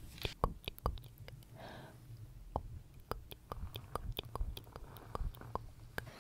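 Close-miked ASMR whispering: scattered soft clicks and taps, with a short breathy whisper about one and a half seconds in.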